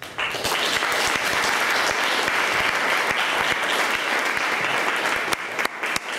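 Audience applauding steadily at the end of a piano performance, the clapping thinning to scattered individual claps near the end.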